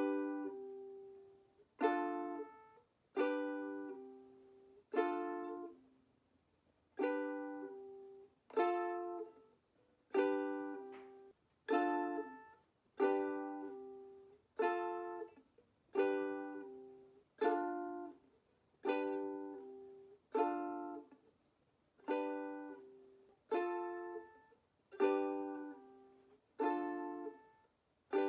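Ukulele strummed with single chord strokes, about one a second. Each chord rings out and fades before the next.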